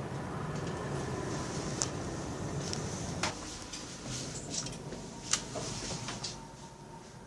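2005 ThyssenKrupp passenger lift in operation: a steady hum with a faint steady tone, broken by sharp clicks and knocks about two, three and five seconds in. The hum dies down near the end.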